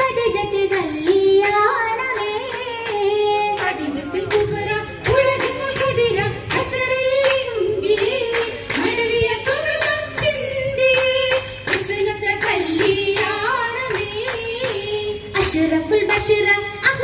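Oppana song: women's voices singing a Mappila melody, accompanied by the dancers' rhythmic hand-clapping on the beat.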